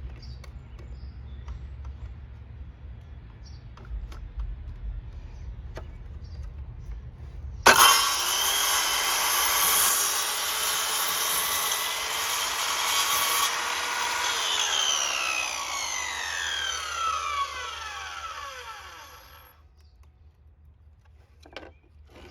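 Metabo HPT 7-1/4 inch circular saw starting suddenly about a third of the way in and ripping a wood board for several seconds, then released, its motor winding down with a falling whine over about five seconds. Before it, a low rumble and a few light clicks.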